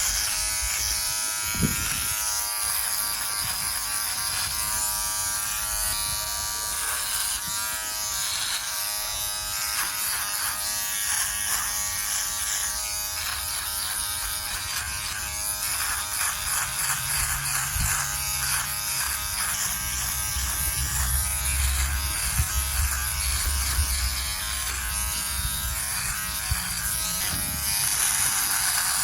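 Philips Norelco OneBlade electric trimmer buzzing steadily while shaving down a thick beard.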